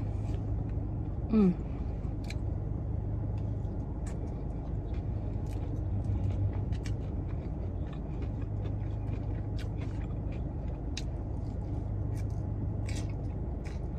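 Steady low hum inside a car's cabin, with soft scattered clicks of a plastic fork in a fibre bowl and chewing on salad. A brief vocal 'mm' comes about a second and a half in.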